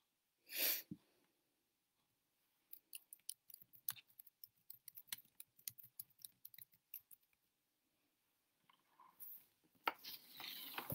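Faint irregular clicking of a computer keyboard for about four seconds, after a short rustle near the start and before a longer rustle near the end.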